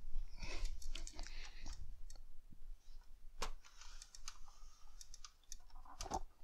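Light scattered clicks and rustling from hands handling a desktop PC and a thermal-paste syringe over the CPU, with one sharper click about three and a half seconds in.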